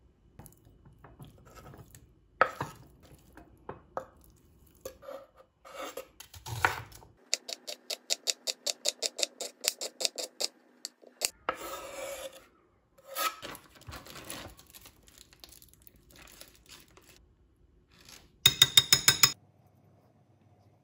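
Kitchen handling sounds: scattered knocks and clinks of utensils and dishes, then a knife chopping onion on a wooden cutting board in a quick even run of about seven strokes a second. Near the end comes a brief, loud, rapid rattle.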